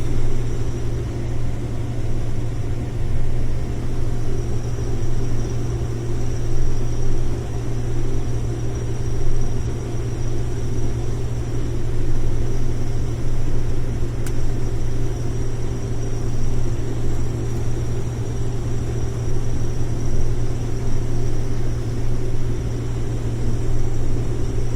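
Combine harvester's Cummins diesel engine and machinery running steadily under load while harvesting corn: an even, low drone with a faint steady high whine over it.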